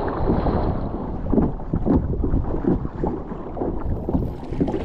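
Sea water splashing and sloshing over a sit-on-top kayak's deck as it is paddled through choppy water, in many short uneven splashes, with wind rumbling on the microphone.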